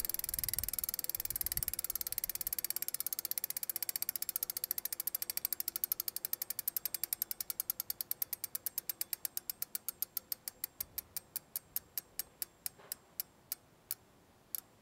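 Bicycle rear freehub ratcheting as a spun wheel coasts down: a fast run of clicks that slows steadily to a few clicks a second, then stops near the end.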